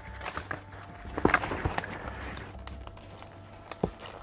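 A Purple gel-grid seat cushion being folded and pushed into its cloth cover: fabric rustling with scattered soft knocks, the sharpest about a second in and again near the end.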